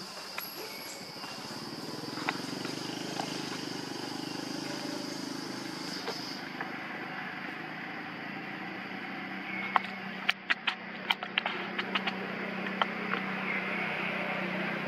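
Outdoor ambience: a steady high-pitched drone that stops suddenly about halfway through, under a low steady hum. A quick run of sharp clicks comes a few seconds before the end.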